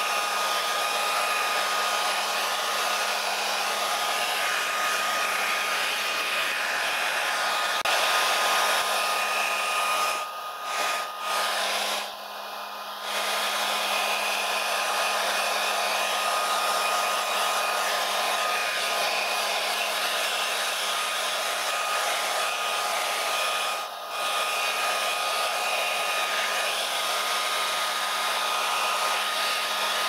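Hair dryer blowing steadily: a rushing of air with a steady motor whine, dropping briefly in level a few times about a third of the way in and once more later.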